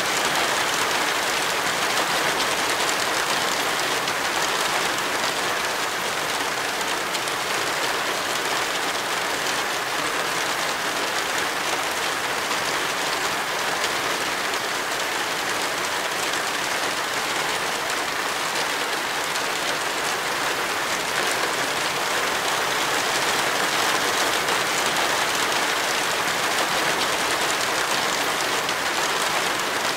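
Steady rain, an even hiss with no breaks and no single drops or knocks standing out.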